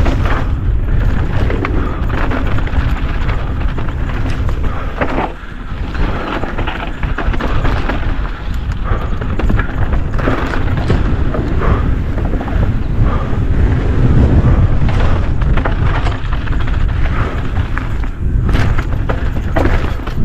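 Downhill mountain bike riding down a dirt trail: heavy wind buffeting on the microphone over tyre noise, with a constant clatter of chain and frame rattling over bumps.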